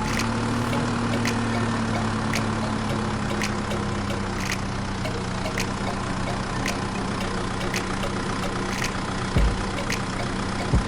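A motor running steadily with a low, even hum, with a light tick about once a second and a low thump near the end.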